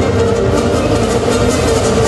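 Loud music with a strong held note and a heavy low end, played for a stage dance routine.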